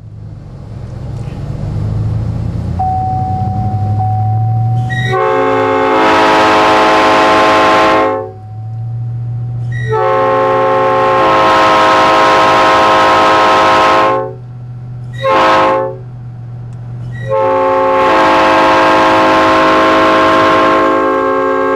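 Nathan Airchime P5 five-chime locomotive air horn sounding a multi-note chord in four blasts, long, long, short, long: the grade-crossing signal. Under the horn, the truck's engine rumble builds during the first few seconds as it approaches on the run-by.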